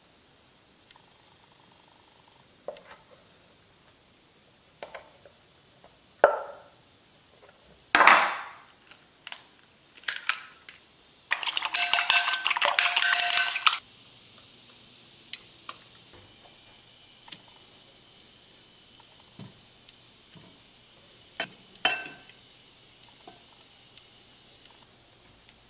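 An egg being beaten in a ceramic bowl, the utensil clinking rapidly against the bowl for about two and a half seconds near the middle. Scattered knocks and clinks of dishes and utensils come before and after, the loudest a sharp knock about eight seconds in.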